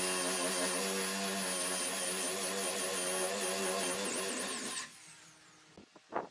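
A power tool's electric motor running steadily with a high whine, then cutting off abruptly about five seconds in. A few light knocks follow.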